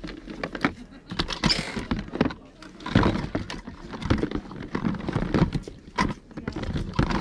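Small hard plastic toys clicking and clattering against each other in an irregular run of knocks, as a box of My Little Pony figures is rummaged through by hand.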